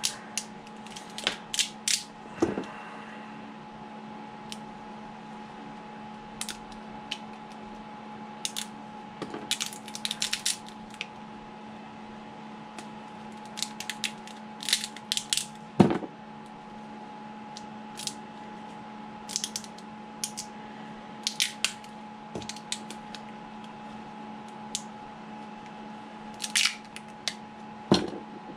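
Supports being snapped off a resin 3D print by hand: scattered sharp plastic clicks and snaps, some in quick clusters, with a louder snap about halfway through and another near the end. A steady electrical hum runs underneath.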